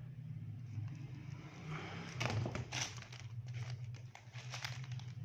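Power cables being handled: rustling and a run of short clicks and knocks, loudest from about two to five seconds in, over a steady low hum.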